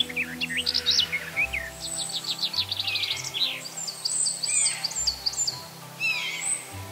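Small songbirds singing: busy high chirps and trills, with rapid runs of repeated notes, over soft background music.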